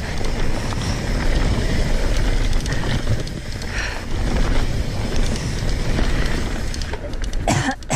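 Wind buffeting the camera microphone over the steady rumble and rattle of a mountain bike's tyres and frame on a fast dirt singletrack descent, with a sharp clatter near the end.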